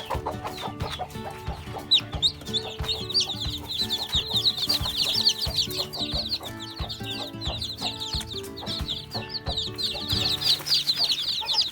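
A brood of newly hatched chicks peeping continuously, a dense stream of short, high, falling chirps, with a hen clucking among them.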